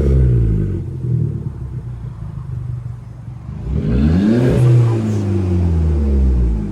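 Audi A1's engine free-revved through its exhaust, which has a trial resonator fitted so the exhaust sound can be judged. The revs fall back to idle, then a single quick blip comes just under four seconds in and sinks back down.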